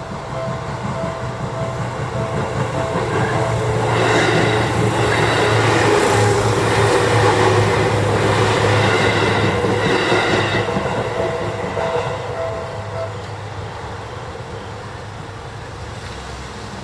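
Level-crossing alarm on the Seibu Tamako Line ringing in a steady repeating tone while an electric train runs through the crossing, its wheel and motor noise rising to a peak in the middle and then fading. The alarm is heard again once the train has passed, then stops near the end as the crossing clears.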